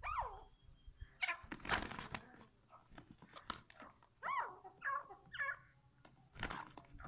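Short squawking calls from a rooster and a partridge squaring off. There is a downward-sliding call right at the start and a quick run of calls about four to five and a half seconds in, with short bursts of scuffling noise between them.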